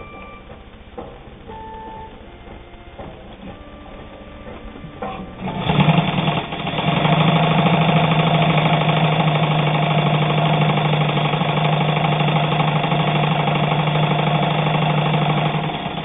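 Morse Fotomatic IV sewing machine stitching through eight layers of heavy denim. After a few seconds of faint clicks it starts, stops briefly, then runs steadily with a low motor hum and a rapid needle clatter, stopping near the end.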